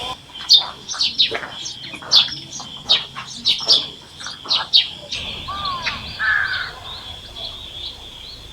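Birds calling: a rapid run of short, sharp calls for about five seconds, then a couple of gliding notes, over a steady high-pitched drone.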